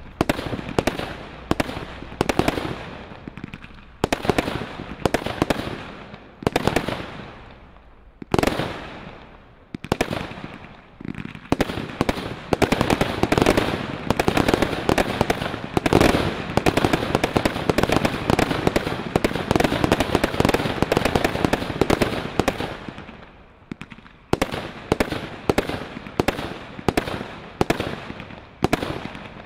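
Grand Slam GS2352GB firework barrage firing: shots going off every few tenths of a second, with stars bursting and crackling. About halfway through they come thick and fast in a dense continuous volley, then a short lull, then an even run of single shots again near the end.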